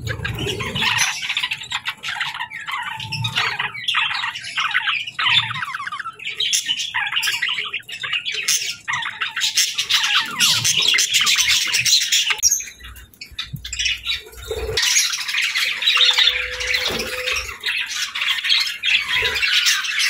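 Budgerigars chattering and squawking: a dense run of rapid, harsh warbling calls, with a short lull about thirteen seconds in.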